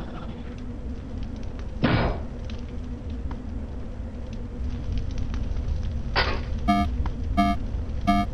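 Sci-fi sound effects: a low steady rumble, a short whoosh about two seconds in and another about six seconds in, then a spherical space probe beeping in short electronic tones, about one every 0.7 seconds, near the end.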